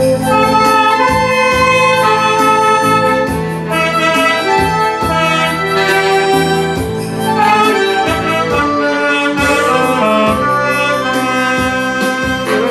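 A saxophone and electronic wind instruments playing a slow melody in held notes over a backing track with a bass line and a steady beat.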